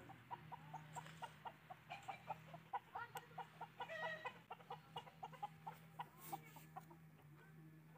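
Mianwali rooster clucking softly in a quick run of short notes, about four a second, which dies away about six seconds in. A faint steady hum sits underneath.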